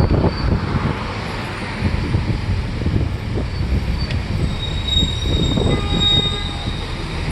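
Moving tour bus with a steady low road rumble, and a thin high squeal coming in about halfway through and lasting a couple of seconds.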